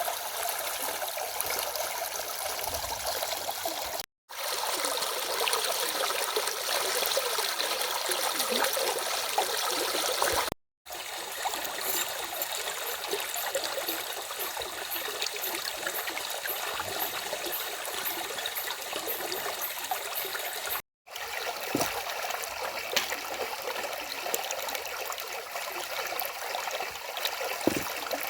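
Stream of water rushing and splashing over a small cascade, a steady watery hiss. It drops out to silence three times for a split second.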